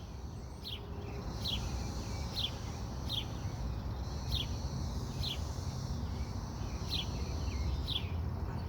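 Periodical cicadas of 13-year Brood XIX singing their mating chorus, a steady high drone. A short falling chirp repeats about once a second over a low rumble.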